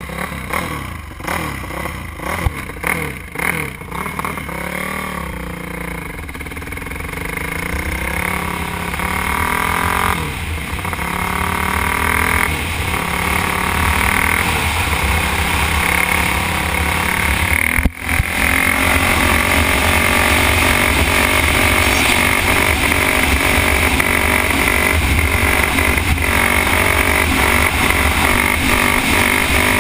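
Honda CRF450 dirt bike's single-cylinder four-stroke engine running and revving up and down as the bike pulls away and speeds up, heard from a helmet-mounted camera. There are irregular knocks from a gloved hand on the camera in the first few seconds. The sound cuts out briefly about two-thirds through, then the engine runs steadily at speed.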